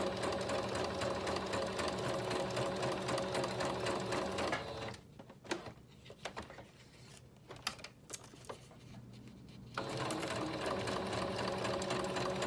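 Electric sewing machine stitching through paper, running steadily, then stopping about five seconds in. After a pause of about five seconds with only a few light clicks, it starts stitching again.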